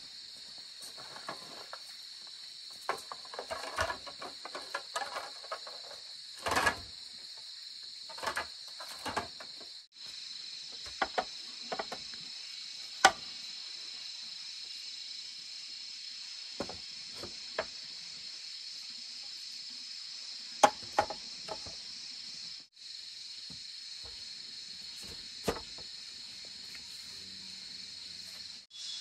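Steady high-pitched chorus of crickets or similar insects, with scattered sharp knocks and taps from bamboo being worked. A cluster of knocks comes in the first ten seconds, and single louder strikes follow about 13 and 21 seconds in.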